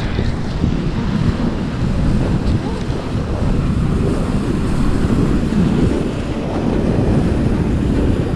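Wind rumbling on a water-level camera microphone over the wash of sea water and breaking surf, a steady low rumble throughout.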